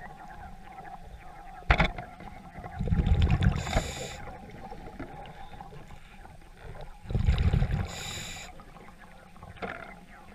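Scuba diver breathing through a regulator underwater, heard through the camera housing. There are two loud bubbly rumbles of exhaled air about four and a half seconds apart, each ending in a short hiss. A sharp click comes about two seconds in.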